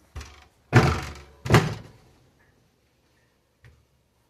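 Three thuds in quick succession, a lighter one and then two loud ones about three quarters of a second apart, each dying away quickly.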